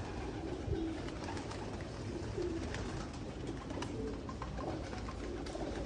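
A flock of domestic racing pigeons cooing, many low coos overlapping without a break, with a few sharp clicks among them.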